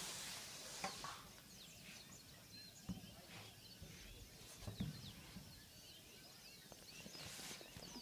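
Many small birds chirping at dusk, a faint chorus of quick, short calls overlapping throughout. A brief rush of noise fades in the first second and comes back near the end, with a couple of soft low knocks in between.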